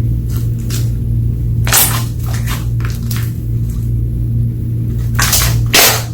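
Slime being squished and worked by hand: a handful of sticky squelches and pops, the loudest pair near the end, over a steady low background hum or music.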